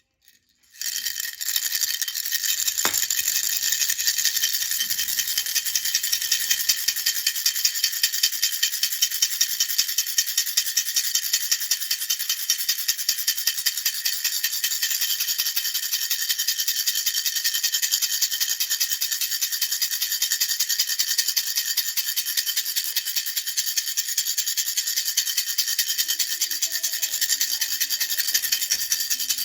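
A baby rattle shaken steadily and rhythmically, about four shakes a second, starting about a second in. The sound is a bright, high rattling of loose beads.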